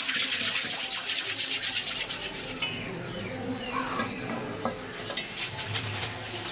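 Hot oil sizzling and crackling in an iron kadai as samosas and vegetable cutlets deep-fry, with a metal wire skimmer stirring and scraping through the oil. The sizzle is loudest in the first second or so, then settles to a softer bubbling crackle.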